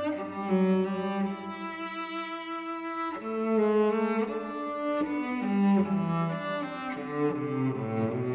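Background music: a slow melody of long held notes over a lower moving bass line.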